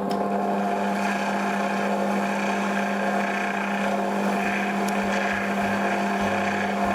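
Stadler Form Black Edition stand mixer running at a steady speed, its motor giving an even, constant-pitch hum as the flat beater mixes egg white into a kulich dough base in the steel bowl.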